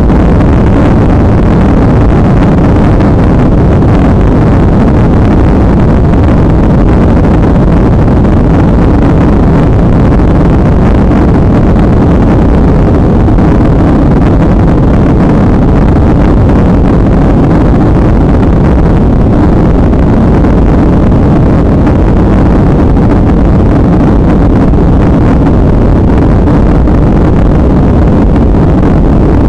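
Boeing 737's jet engines at takeoff thrust, heard from inside the cabin during the takeoff roll: a very loud, steady noise, heaviest in the low end.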